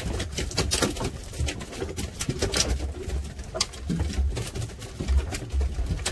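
Wind buffeting the microphone with uneven low rumbles, over a busy run of rustles, clicks and knocks from the crew handling lines and oilskins aboard a small open fishing boat.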